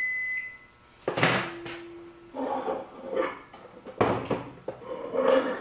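Microwave oven's single long end-of-cycle beep, a steady high tone that stops just under a second in. The door then opens with a sharp clack, followed by knocks and handling noise as the glass Pyrex cups of plastisol are taken out.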